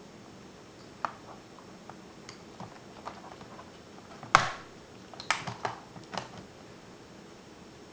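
Small clicks and taps of laptop parts being handled during disassembly. A single loud knock comes about halfway through, followed by a quick run of sharper clicks.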